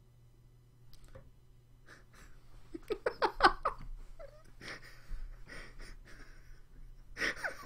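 A man laughing hard in breathy bursts, loudest about three seconds in and again near the end.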